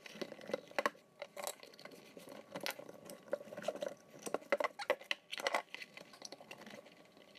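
Shoe lasts being worked back into leather shoes by hand: irregular light knocks, clicks and scuffs of the last against the leather and the bench.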